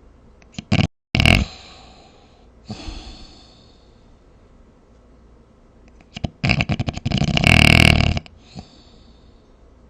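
A sleeper snoring: a short loud snore about a second in, a weaker one near three seconds, then a long snore with a rapid fluttering rattle from about six and a half to eight seconds.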